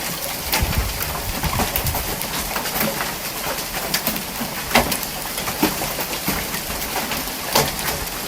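Heavy hail pelting down in a dense, steady clatter, with single large hailstones striking hard as loud sharp cracks every second or two.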